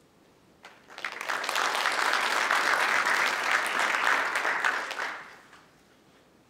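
Audience applause: many people clapping, starting about a second in and dying away after about four seconds.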